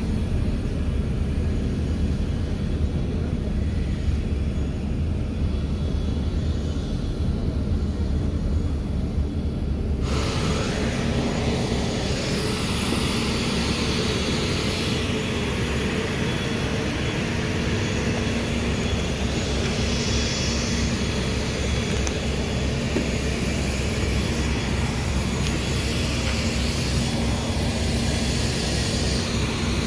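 Steady low rumble heard from inside an airport apron bus; about ten seconds in it gives way abruptly to open-air apron noise, a hissing din with a steady aircraft engine hum.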